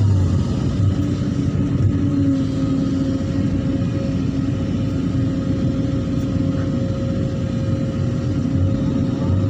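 Hydraulic excavator's diesel engine running steadily, a low rumble with a steady whine over it.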